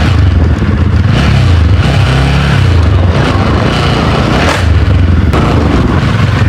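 Motorcycle engine running while riding, with heavy wind noise over the microphone; the engine note dips and climbs back about two seconds in.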